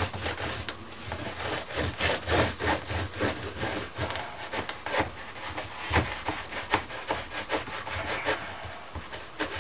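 Hand scrubbing a surface: repeated back-and-forth rubbing strokes in an uneven rhythm.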